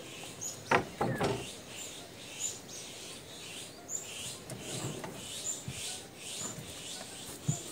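A bird chirping over and over, a short high call repeated about every half second. A few knocks and rustles come about a second in, and a single thump near the end.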